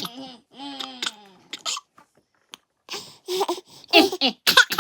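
Baby babbling and making short laughing, hiccup-like vocal bursts, with a brief pause near the middle before the bursts pick up again.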